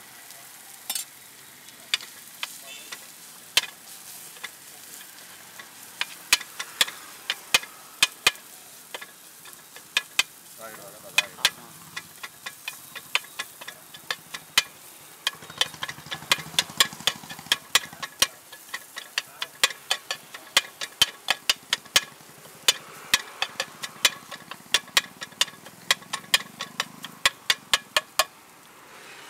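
A flat metal spatula repeatedly strikes and scrapes a black pan as boiled tapioca is chopped and mixed into fried beef, with the food sizzling underneath. The taps come sparsely at first, then in fast runs of several a second from about ten seconds in.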